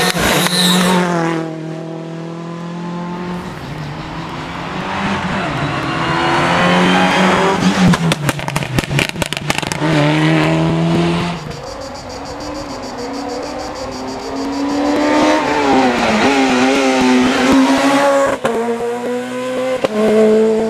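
Rally cars at speed, engines revving hard and falling off between gear changes as they pass one after another, with a burst of rapid sharp crackling a little past the middle.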